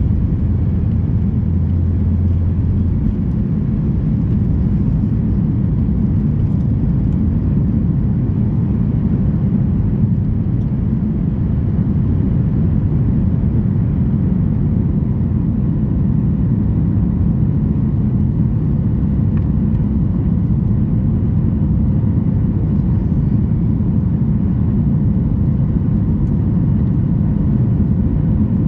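Steady engine and airflow noise heard inside the cabin of a Boeing 737 MAX 8 with CFM LEAP-1B turbofans, a low, even rumble with a faint steady whine above it. A brief low hum comes in about two seconds in.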